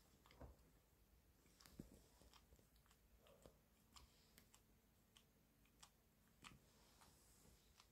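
Faint, irregular small clicks and smacks of a dog licking and nibbling her puppy's fur as she grooms it.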